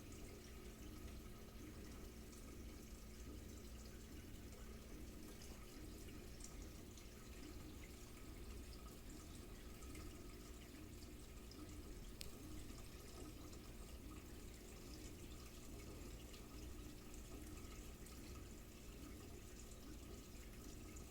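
Faint, steady trickle of water with a low hum from a reef aquarium's circulation: the overflow and return pump running. There is a single faint tick about twelve seconds in.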